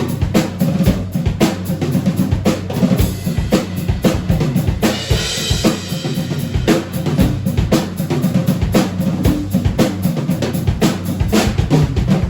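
Drum kit played with a new SJC custom snare drum: a busy pattern of fast snare and bass-drum strokes, with a bright cymbal crash about five seconds in.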